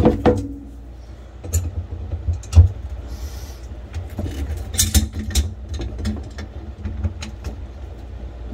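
Metal wrenches clicking and knocking on a sink shutoff valve's supply-line fitting as it is tightened to stop a drip: irregular sharp clicks, the loudest about two and a half seconds in, over a steady low rumble.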